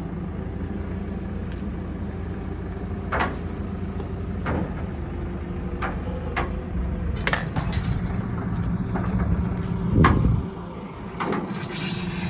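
Telescopic handler's diesel engine running steadily, with several sharp knocks as the machine works; the loudest knock comes about ten seconds in, and the engine's low drone then drops away.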